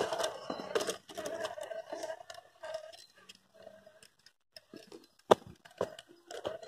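Scale RC crawler's Fusion 1800kv brushless motor and gears whining in short bursts as it creeps over dirt and stones, with crunching and clicking from the tyres and chassis. There is a sharp knock a little after five seconds in.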